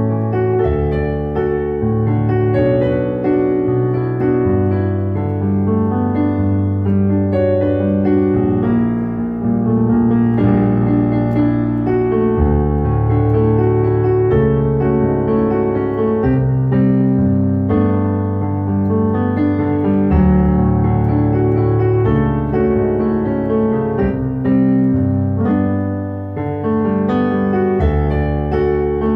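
Kurzweil PC3K8 digital keyboard played with a piano sound, solo: held bass notes that change every second or two under chords and a melody.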